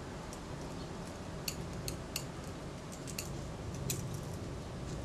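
Tweezers and tiny steel parts of a Kodak Retina Reflex S leaf shutter giving a handful of light, scattered metallic clicks and ticks while the self-timer is being freed, over a low steady hum.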